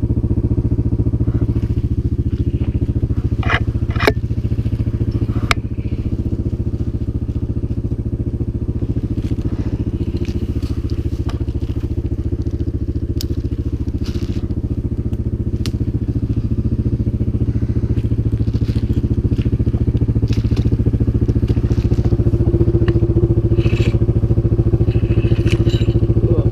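CFMOTO 500 ATV's single-cylinder engine running steadily at a fairly even speed, picking up slightly in the last few seconds. Scattered sharp clicks and cracks sound over it, two of the loudest about four seconds in.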